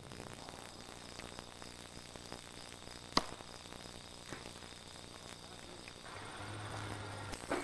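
Faint steady background hiss with one sharp click about three seconds in.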